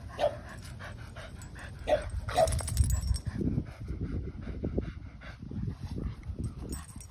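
A dog barks three times, short and sharp, in the first two and a half seconds, over a low rumbling noise that is loudest two to three seconds in.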